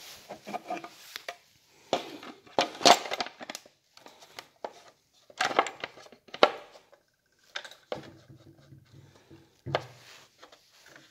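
Irregular clicks, knocks and scraping of hard plastic as the Husqvarna 445 II chainsaw's top cover is fitted back over the cylinder and pressed into place.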